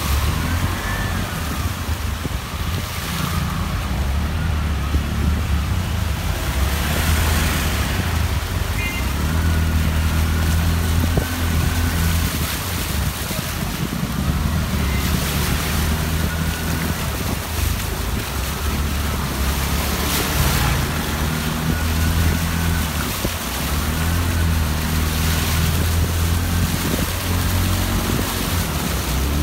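Engine running steadily under a constant rushing noise.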